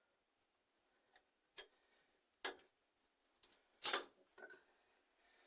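About five sharp clicks and knocks of tools and metal tap parts being handled while fitting a bathroom mixer tap, the loudest about four seconds in.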